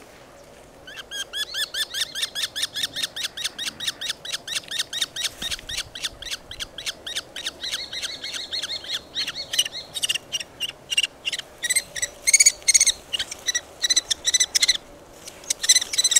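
Common kestrel giving a long run of shrill, rapidly repeated kee-kee-kee calls at about five a second, starting about a second in. The calls grow louder and more uneven later on, break off briefly near the end, then start again.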